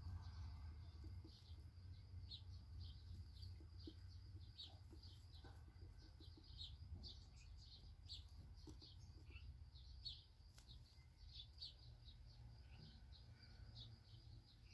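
Black redstart nestlings giving faint, high-pitched begging chirps from the nest, several a second, over a low steady hum.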